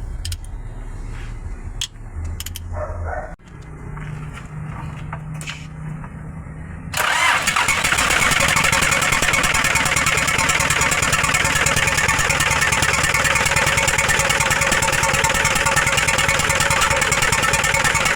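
Hino 300's W04D four-cylinder diesel engine running at idle. About seven seconds in it turns suddenly much louder, with a dense, rapid pulsing that keeps going: the misfiring engine is blowing back through its intake, which the mechanic takes for a blown gasket.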